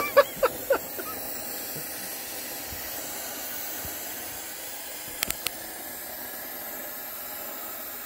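Oxy-acetylene torch with a rosebud heating tip burning with a steady hiss as it heats a copper refrigerant line joint for brazing. A few short taps come in the first second, and three quick clicks about five seconds in.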